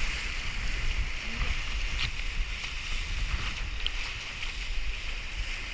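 Steady wind buffeting the microphone, a low rumble, over the hiss of sea water washing, with a few faint ticks.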